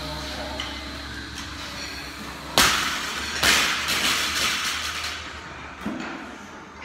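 A loaded barbell with black plates dropped from overhead onto a rubber gym floor: a sharp, loud bang about two and a half seconds in, then a second bang about a second later as it bounces, trailing off in a rattle.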